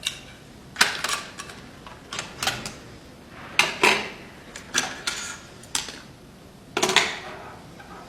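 Irregular sharp metallic clicks and clacks, about a dozen, some in quick pairs, the strongest cluster near the end.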